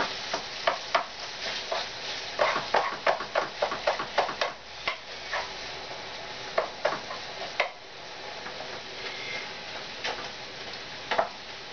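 Food sizzling in a frying pan while a utensil stirs and scrapes through it, with many short clicks of the utensil against the pan, busiest in the first few seconds and again near the end.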